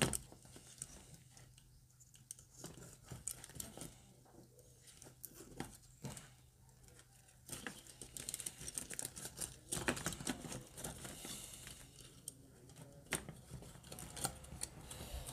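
Faint rustling and light clicking of nylon cable ties and plastic fan frames being handled, as the ties are threaded loosely around a group of computer cooling fans and their wires.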